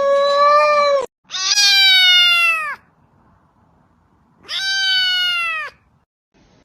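A cat meowing loudly: a long, drawn-out meow that ends about a second in, then two more long meows that start high and fall in pitch.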